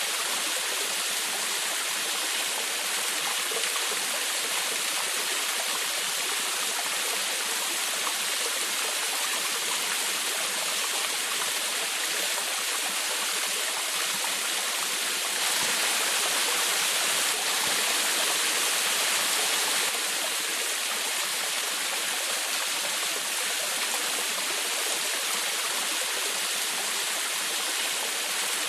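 Small waterfall babbling and splashing steadily, a little louder for a few seconds about halfway through.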